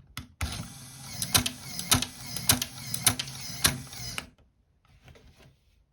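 Lego Technic shooting gun's plastic gear mechanism running with a continuous rattle and five sharp clicks about half a second apart. It stops about two-thirds of the way through, leaving a few faint rattles.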